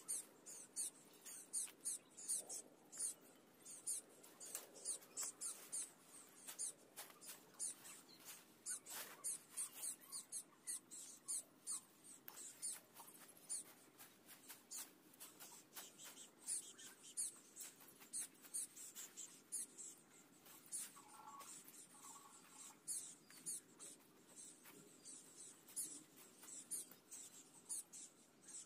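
Faint, quick, irregular scratching strokes, a few a second.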